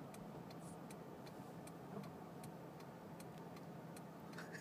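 Faint, regular ticking of a car's hazard-light flasher, about three ticks a second, heard from inside the cabin.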